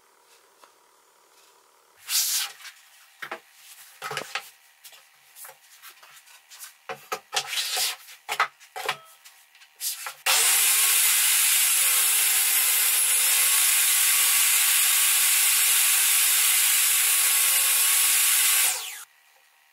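Knocks and scrapes of wooden pieces being handled on a saw table. Then, about halfway through, an electric power tool motor starts suddenly and runs loud and steady for about eight seconds before cutting off sharply.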